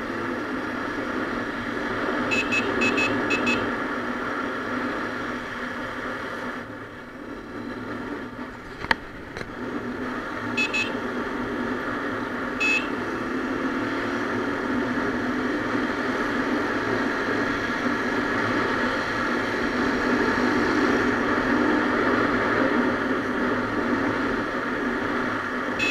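Motorcycle engine and wind noise while riding, steady, easing off briefly around 7 to 9 s. Short high horn beeps cut through it: a quick run of about four near 2–3 s in, two around 11 s and one near 13 s, with a single sharp click near 9 s.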